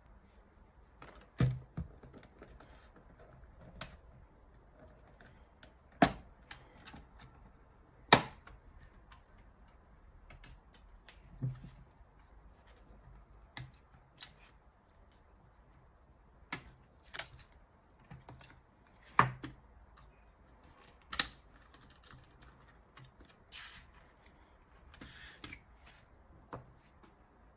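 Hard plastic housing of an Autel MaxiPRO MP808 scan tablet being handled and taken apart on a table: irregular sharp clicks and knocks as the case is worked open and its halves are separated and set down, with a little softer scraping near the end.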